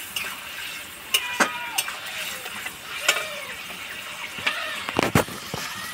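Metal ladle scraping and clinking against a metal karai as a thick curry is stirred, with short squeaky scrapes. A couple of sharp knocks about five seconds in are the loudest sounds.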